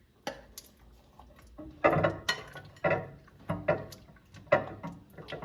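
A utensil stirring a thick mixture of half-melted chocolate chips and sweetened condensed milk in a bowl. It gives a run of uneven scrapes and knocks against the bowl, about one every half-second to second.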